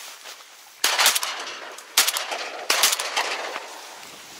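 Three shotgun shots at ducks flying over: the first about a second in, then two more close together near the two-second mark, each trailing off in a short echo.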